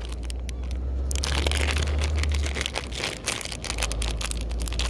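Crinkling and crackling of a plastic bait pouch of Berkley Gulp minnows being handled and opened, as irregular sharp clicks, over a steady low rumble.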